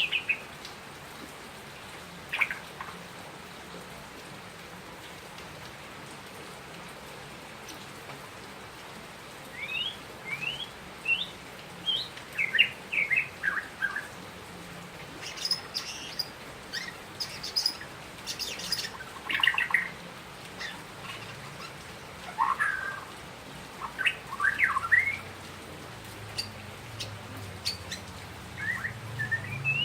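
White-rumped shama (Bornean murai batu) singing in bursts of quick, rising and falling whistled notes with sharper high notes mixed in. After a short phrase at the start it is silent for several seconds, then sings in phrases separated by short pauses.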